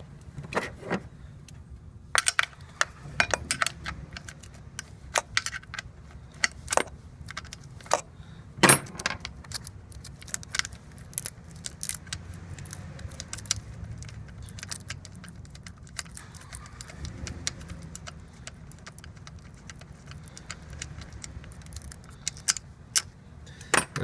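Scattered sharp clicks and rattles of hands handling plastic connectors, hoses and a small part fitted to a car engine's valve cover, over a low steady hum.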